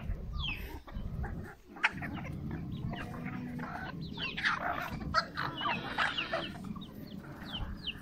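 A flock of free-range hens clucking and calling, many short calls overlapping, some of them quick high calls that fall in pitch. A low steady rumble runs underneath.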